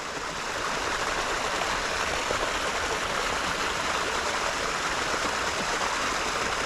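Small creek water running and splashing steadily over a little fall into a pool, an even rushing with no breaks.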